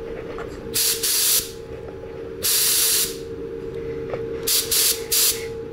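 Gravity-feed spray gun loaded with clear coat, triggered in short hissing bursts to test its spray fan: one burst about a second in, a longer one near the middle, then a few quick short ones near the end. A steady faint hum runs underneath.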